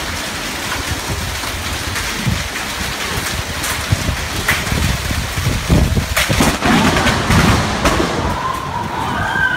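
Heavy thunderstorm rain pouring down with a steady, loud noise, low thunder rumbling under it and several sharp cracks through the middle.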